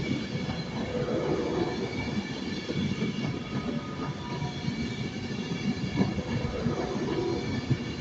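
A train moving along the station platform: a steady rumble of wheels and running gear, with faint high steady tones above it.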